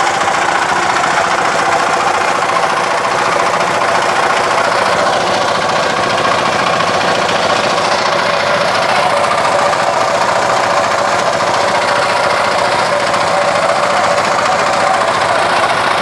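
Engine of a small motorboat running steadily while under way, a loud, even mechanical drone with no change in speed.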